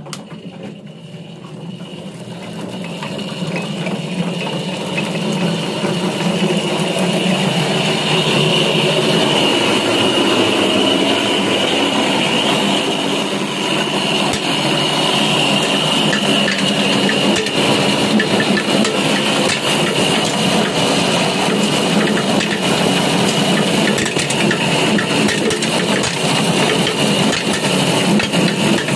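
Electric areca nut peeling machine coming up to speed over the first several seconds, then running steadily. It has a low hum, a steady high whine and a constant rapid rattle as the nuts are dehusked.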